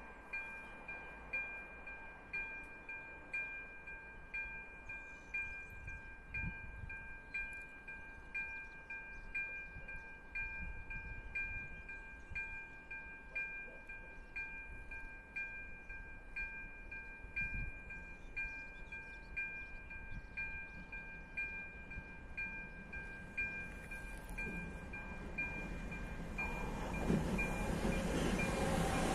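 Level-crossing warning bell ringing with evenly repeated electronic dings, about two a second. Over the last few seconds the rumble of an approaching train rises and grows loud.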